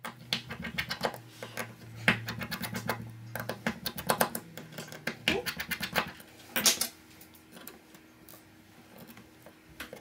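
Precision screwdriver working tiny screws out of a smartphone's internal housing: a dense run of small clicks and scratches of the bit on the screw heads and frame, thinning out about seven seconds in. A faint steady low hum sits underneath.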